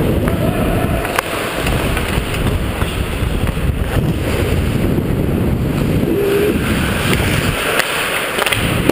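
Steady rushing rumble of wind on a body-worn GoPro's microphone while skating, mixed with skate blades scraping the ice. A couple of sharp clicks come about a second in.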